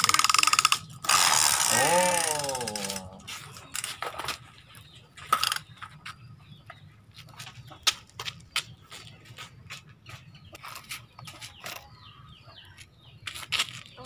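Plastic toy wheel loader pushed by hand over rough concrete: a loud, fast rattling scrape of its plastic wheels for the first three seconds. After that, scattered clicks and knocks of plastic toy vehicles being handled. A voice sounds briefly about two seconds in.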